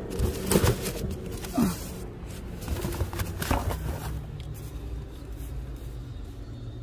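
Cardboard box of aerosol hair spray cans being handled: a few knocks and rustles in the first four seconds, over a steady low hum that carries on after them.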